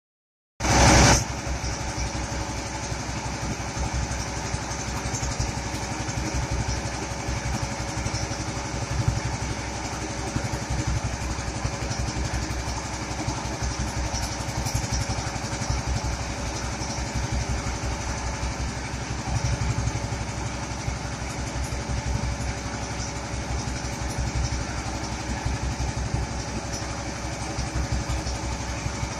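Engine-driven power rice thresher running steadily, with a fast, even engine pulse and a steady hum from the spinning drum as rice stalks are fed into it. A brief louder burst comes in the first second.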